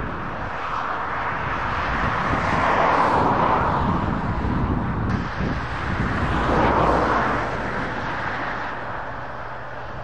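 Distant Fendt Vario tractor driving past towing a trailer: steady engine and tyre noise that swells and eases twice, with an abrupt change about halfway through.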